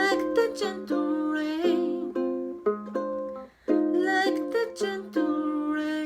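Ukulele playing bossa nova chords in F minor, plucked and strummed with frequent chord changes. It breaks off briefly about three and a half seconds in before the chords resume.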